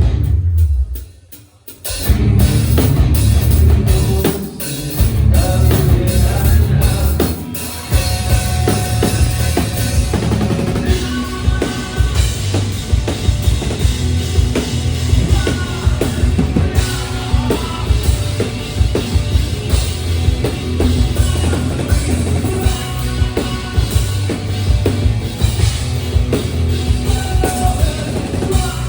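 Live rock band playing hard rock, with a heavy drum kit and bass drum to the fore. About a second in, the band stops dead for a moment, then crashes back in together.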